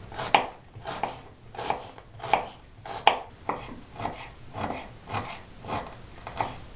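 Kitchen knife chopping on a bamboo cutting board, first slicing onion, then chopping fresh greens: a steady run of short knocks of the blade on the wood, about one and a half a second.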